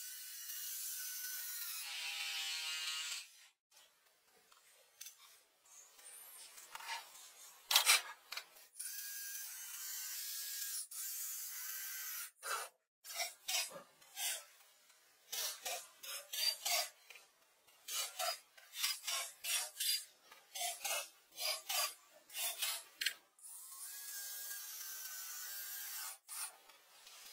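Pencil scratching on drawing paper: steady shading strokes at the start and again near the end, with many short, quick strokes in between.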